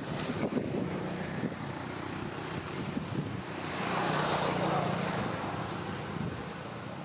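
Road traffic going by, a continuous rumble. One vehicle grows louder and passes about halfway through, then the sound eases off.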